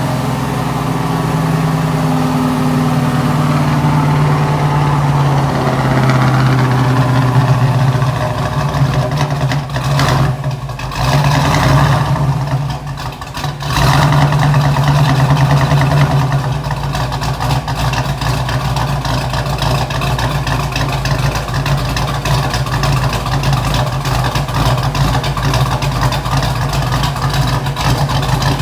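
Rebuilt Ford 289 Hi-Po V8 engine running steadily. It dips briefly twice, about ten and thirteen seconds in.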